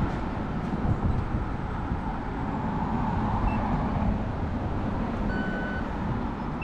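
Steady city street traffic noise, with a short electronic beep about five seconds in.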